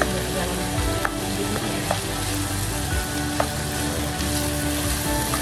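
Chicken thighs and sliced onions sizzling steadily in a hot nonstick pan, with a spatula stirring through them and clicking against the pan a few times.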